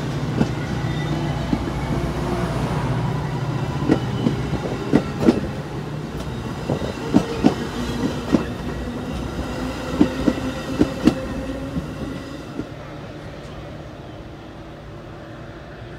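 Metra commuter train's stainless-steel bilevel gallery cars rolling past close by: a steady rumble with sharp wheel clacks over rail joints. The rumble fades off in the last few seconds as the train goes by.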